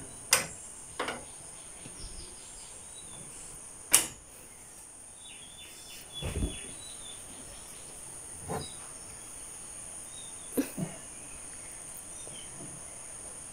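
Wooden glass-paned casement windows being swung open: scattered knocks and clicks of the frames and latches, the sharpest about four seconds in and a dull thump about six seconds in, over a steady high hiss.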